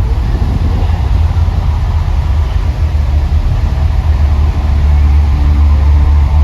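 Loud, steady deep rumble from the volcano show, swelling a little about five seconds in.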